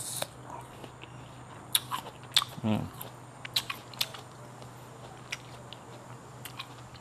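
Sharp crunches and clicks from slices of crisp raw fruit being bitten and handled, most of them between about two and four seconds in, with a brief low voice sound in the middle of them.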